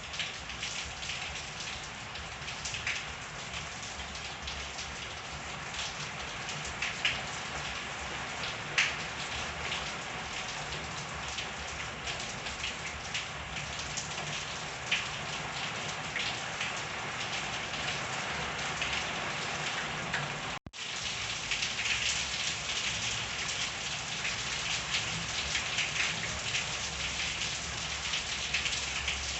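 Steady rain falling, with individual drops pattering and ticking on surfaces. It cuts out for a split second about two-thirds of the way through, then comes back slightly louder.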